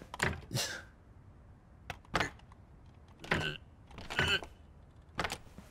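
A locked pair of glass shop doors rattles and thumps in its frame as it is tugged by the handles, about six sharp jolts roughly a second apart. The doors do not give because they are locked.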